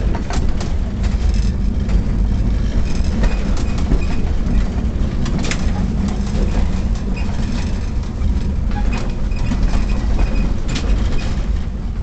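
A 1923 Brill streetcar rolling along the track, heard from inside the car: a steady low rumble with irregular clicks and rattles of the wheels over the rail, and a faint high whine that comes and goes.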